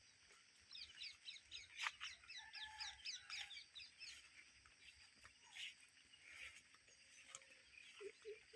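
Faint birds chirping outdoors: a quick run of high chirps from about one to four seconds in, with a few scattered calls after, over a steady high-pitched whine. A single sharp click about two seconds in is the loudest sound.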